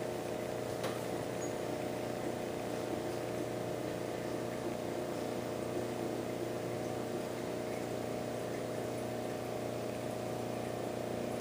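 Steady electrical hum from a VHS tape's soundtrack: several held low tones over faint tape hiss, unchanging, cutting off suddenly near the end.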